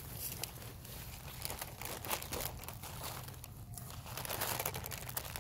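Ripstop kite sail fabric crinkling and rustling irregularly in the hands as it is worked at to open the small spar pocket sewn into the sail.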